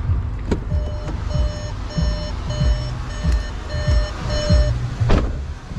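A car door latch clicks, then the Skoda Slavia's interior warning chime beeps seven times, about every 0.6 s, and the driver's door shuts with a thud near the end. A low buffeting rumble runs underneath.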